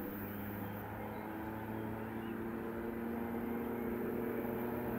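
Airbus A320neo's CFM LEAP-1A turbofan engines spooling up at the start of the takeoff roll: a steady whine of several tones that climb in pitch and grow louder from about a second in.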